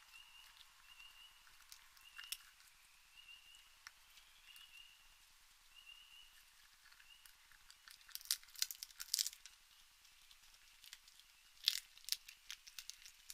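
Raccoon crunching and picking at seed and nuts on a wooden deck railing: scattered clicks, with two louder bursts of crunching about eight and twelve seconds in. A short high chirp repeats at uneven intervals through the first half.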